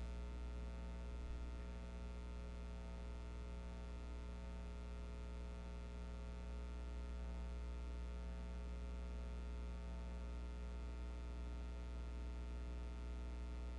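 Steady electrical mains hum with a buzz of many higher overtones above it.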